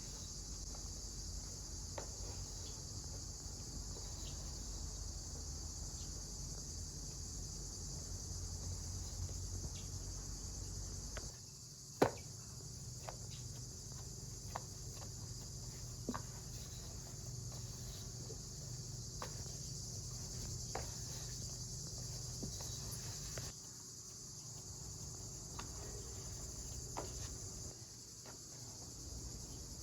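Crickets chirring in a steady, high-pitched chorus, with scattered light clicks and taps and one sharper click about twelve seconds in.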